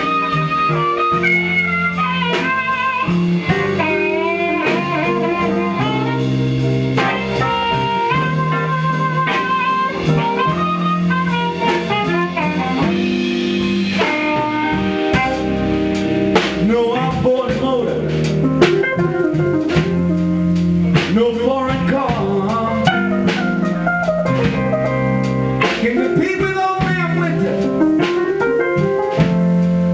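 Live blues band playing: electric guitar, bass guitar, drum kit and keyboards. An amplified harmonica, blown into a hand-cupped microphone, carries a wavering, note-bending lead through the first half, and the drums get busier in the second half.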